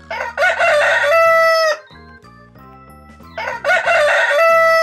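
A rooster crowing twice, each crow about a second and a half long, rising and then held before it cuts off, over quiet background music.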